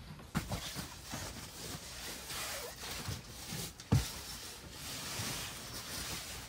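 Rustling and handling noises with a few dull knocks, the loudest about four seconds in.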